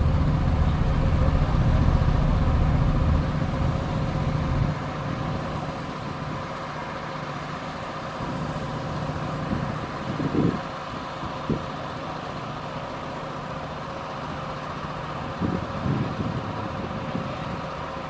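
Shantui DH17C2 crawler bulldozer's diesel engine working under load while pushing dirt. It is loud and low for the first four seconds or so, then eases to a quieter steady run. A steady whine runs throughout, and a few brief louder bumps come around the middle and near the end.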